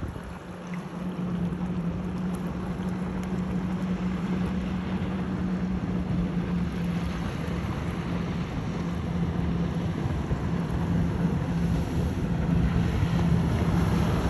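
Cabin cruiser's engines running steadily at speed, a constant drone over the rush of water and wind on the microphone, growing gradually louder toward the end as the boat comes closer.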